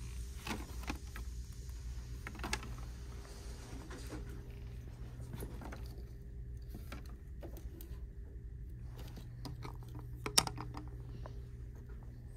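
Light scattered clicks and taps of hanging Easter signs being handled and knocking together on a store display's hooks, with one sharper knock about ten seconds in, over a steady low hum.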